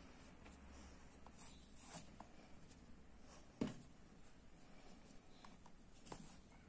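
Near silence with faint rustling of cotton twine being drawn through crochet stitches with a tapestry needle as a seam is sewn. A single sharp click comes about three and a half seconds in.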